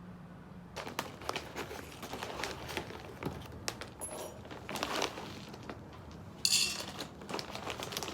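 Light crinkling, crackling and clicking handling noises, starting about a second in, with a brighter crinkly burst near the end.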